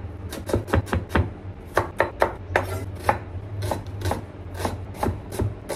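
Chef's knife dicing a red onion on a wooden chopping board: quick, uneven knocks of the blade on the board, about three a second, with a short scrape of the blade about halfway through.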